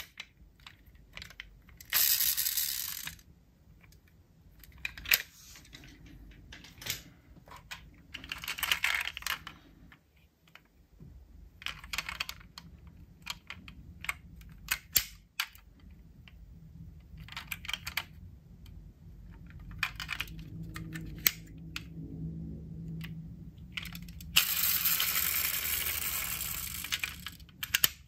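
Diecast metal scale model cars being handled: a scattered run of small clicks and taps from doors and parts being snapped and the metal bodies knocking together, with three longer noisy whirring bursts of one to three seconds.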